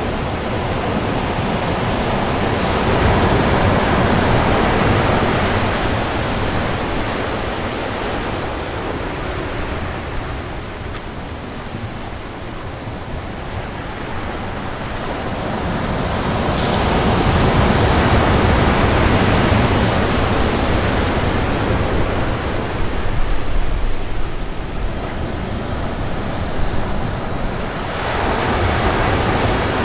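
North Sea surf breaking on the beach: a steady rush of waves that swells up and dies back about three times.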